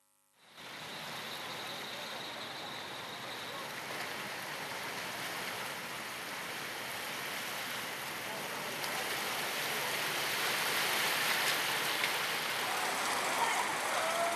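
Cars driving through floodwater on a street: a steady rushing, splashing noise of water churned by tyres, mixed with traffic. It starts abruptly after a brief pause and grows a little louder in the second half.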